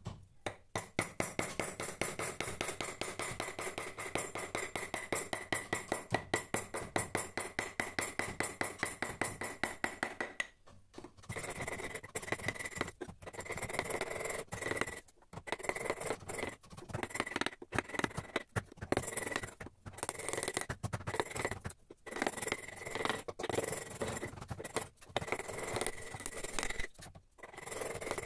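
Carving chisel pushed by hand through teak wood: quick, closely spaced short cuts for about the first ten seconds, then longer scraping cuts with short pauses between them.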